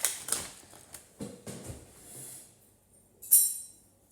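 Thin plastic seal on a hummus tub crinkling and crackling as it is pulled open: a run of sharp crackles, then a louder sharp crackle a little past three seconds in.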